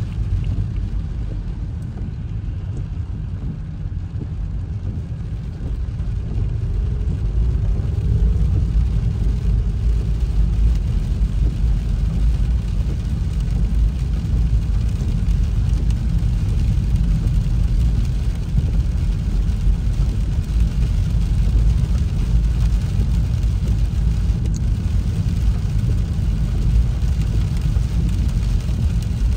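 Steady low rumble of a car driving on a wet road, heard from inside the cabin, getting slightly louder about six seconds in.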